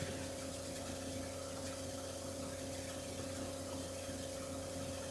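Vacuum pump running with a steady, even hum, drawing the air out of the atmosphere exchange vessel.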